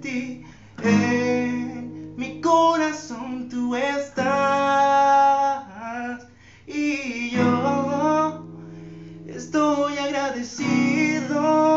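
A man singing a ballad in Spanish to his own strummed steel-string acoustic guitar. He holds long notes over chords that are struck anew every couple of seconds.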